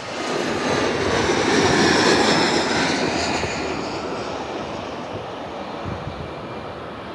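Twin-engine jet airliner passing low on its landing approach: engine roar swelling to a peak about two seconds in, with a high whine that falls in pitch, then fading as it moves away toward the runway.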